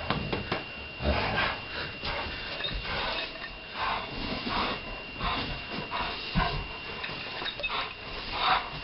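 Dogs scuffling in a tug-of-war with a person: irregular bursts of rubbing and rustling as they pull and jostle at close range.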